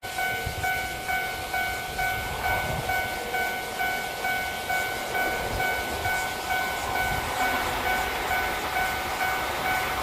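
Japanese level-crossing warning bell ringing steadily, about two strikes a second, over the low rumble of an approaching train hauled by an EF81 electric locomotive.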